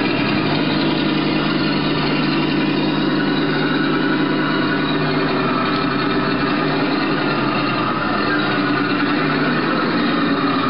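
Radio-controlled model tank's sound unit playing a steady engine idle through its small speaker while the tank stands still. The low hum weakens for a few seconds past the middle and returns near the end.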